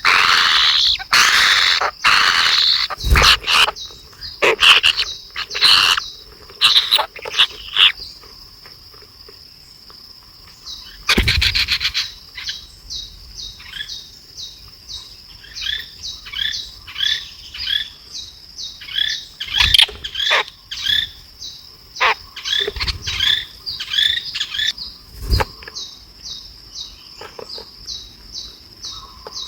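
Nestling birds begging with shrill high chirps, loud and dense at first, then short chirps repeating about twice a second, which is the sign of hungry chicks calling for food. Behind them runs a steady high insect buzz, and a few dull thumps come through.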